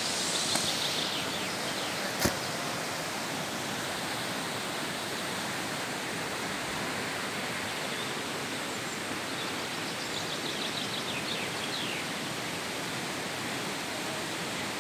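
Steady rush of river water flowing past, with one sharp click about two seconds in and a few faint high bird chirps.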